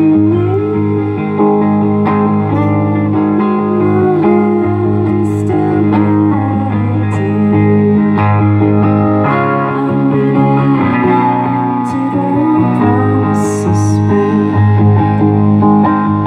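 Hollow-body electric guitar played live through an amplifier, a solo blues passage with some notes bending in pitch.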